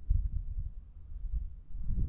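Wind buffeting the microphone: an uneven low rumble that swells and fades in gusts.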